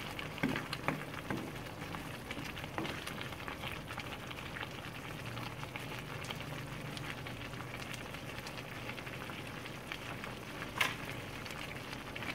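Broth of a vegetable rice-vermicelli soup simmering and bubbling in a frying pan, while a wooden spatula stirs it. There are a few light knocks against the pan, the sharpest near the end.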